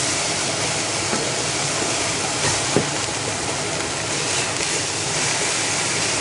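Food sizzling in a hot frying pan: a steady hiss with a few faint crackles around the middle.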